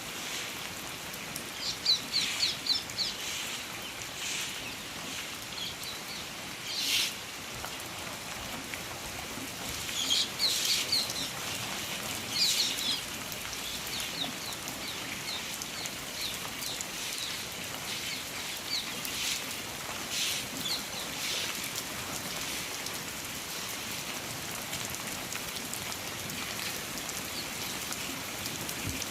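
Steady rain falling, with birds calling in short bursts of high chirps several times over it.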